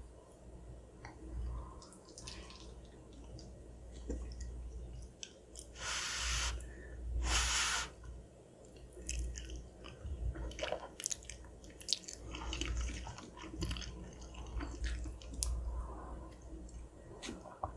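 Close-miked chewing of macaroni and cheese: many small mouth clicks, with two louder hissing bursts about six and seven and a half seconds in.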